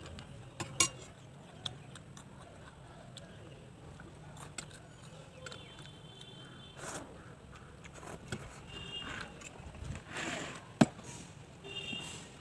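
Close-up eating sounds: chewing on crunchy fried snacks and hand-eaten Maggi noodles, with scattered sharp clicks and a loud tap about eleven seconds in. A short high chirp comes three times in the second half.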